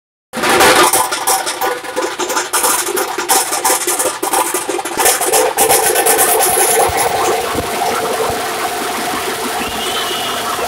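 Dhol tasha pathak drumming: massed dhol drums with tashas and cymbals, loud and dense. Sharp, rapid strokes fill roughly the first half, then the playing settles into a steadier, unbroken wash of sound.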